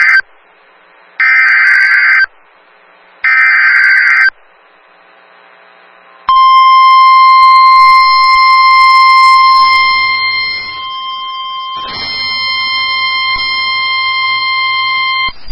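Emergency Alert System alert for a severe thunderstorm warning: the end of one and then two more harsh, screeching SAME header data bursts, each about a second long with a second between them. Then, from about six seconds in, a single steady alert tone sounds for about nine seconds and drops somewhat in level partway through.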